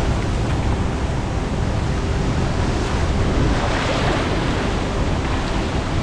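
Large waterfall: a loud, steady rush of falling water crashing into its pool, with wind buffeting the microphone.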